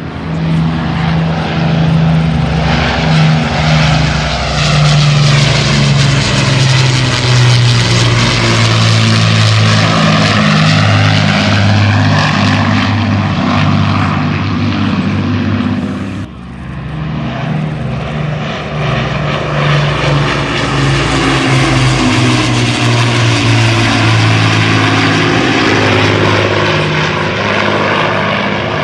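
Propeller aircraft flying past with a steady engine drone, its tone swirling and shifting as it passes overhead. The sound breaks off abruptly about halfway through and picks up again with a second pass.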